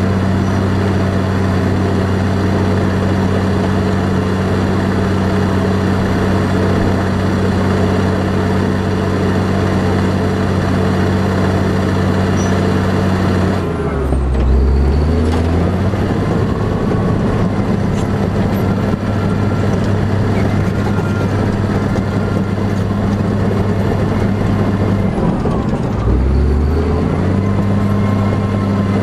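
A motor running steadily with a deep, even hum, twice briefly slowing and dropping in pitch before picking back up, once near the middle and once near the end.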